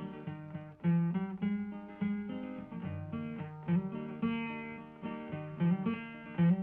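Acoustic guitar strumming chords in the instrumental break between verses of a folk song, with no singing.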